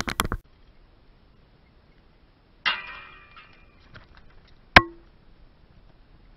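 BMX bike being ridden at a concrete skate park: a quick clatter of knocks at the start, a scrape about two and a half seconds in that fades over a second, and one sharp metallic clank with a brief ring near five seconds in.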